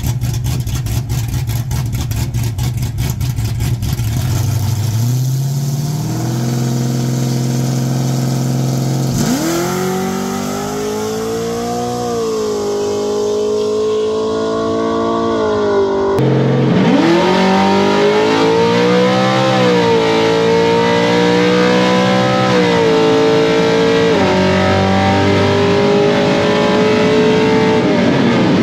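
Drag-racing Chevrolet pickup's V8 revving on the line, then launching at full throttle, its pitch climbing and dropping back at each upshift. After a cut, a second full-throttle pull with upshifts is heard from inside the cab.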